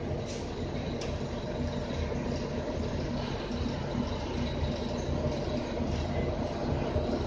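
Interior noise of a moving RTS transit bus: a steady low rumble from the engine and road, with a couple of light clicks about a second in.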